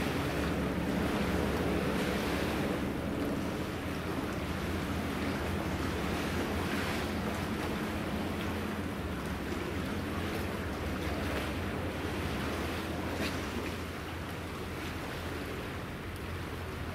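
Passenger hovercraft's engines, ducted propellers and lift fans running with a steady rushing noise over a low hum as it drives up onto its landing pad, easing off a little near the end.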